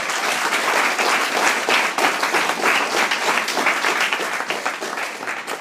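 A small audience applauding, many hands clapping together, then dying away at the end.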